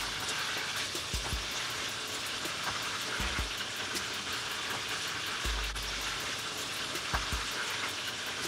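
Flour-coated chicken pieces sizzling steadily as they deep-fry in hot oil in a pressure-cooker pot, with a few low thumps.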